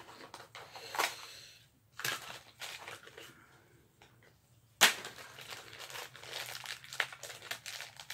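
Small plastic blind-pack toy package being handled and crinkled. A few soft clicks come first, then a single sharp snap about five seconds in, followed by steady crinkling and crackling of the packaging.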